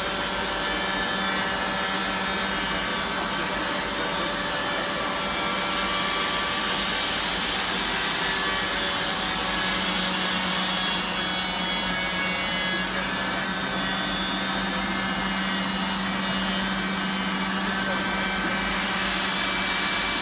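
Vector Revolution 180 CNC contour edgebanding machine running: a steady rushing noise like suction or blowing, with a high, constant whine and a low hum under it.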